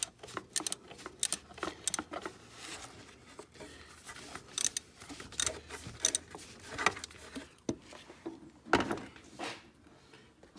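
A 3/8-inch ratchet with a 15 mm socket clicking in short, irregular runs as the tensioner's mounting bolt is backed out, mixed with small metal knocks and cloth brushing close to the microphone, loudest about nine seconds in.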